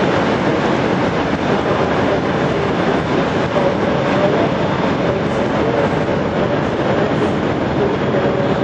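Class 380 electric multiple unit running slowly over pointwork: a steady running noise of wheels and traction equipment with a faint humming tone.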